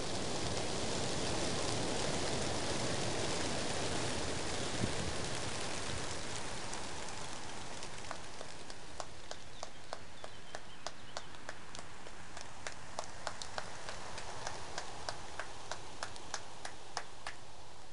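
Wingbeats of a huge flock of racing pigeons taking off together, a dense rushing that is loudest in the first few seconds and then thins out. From about eight seconds on, many short sharp clicks sound over it.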